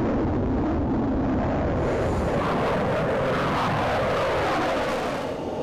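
Fighter jet engine noise as the jet passes, its whine falling in pitch over the second half.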